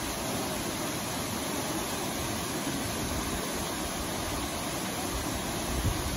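Aguasabon Falls, a tall waterfall dropping into a rock gorge, giving a steady, even rush of falling water. A brief low bump comes near the end.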